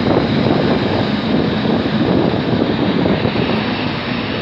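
Boeing 777-300ER's GE90-115B turbofan engines running as the airliner rolls along the runway after landing: a loud, steady rushing jet roar that slowly fades as it moves away.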